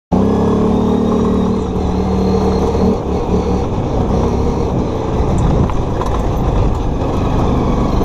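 Chinese ATV engine running as it is ridden, with a faint high whine. The note is steady for about the first three seconds, then turns rougher and noisier.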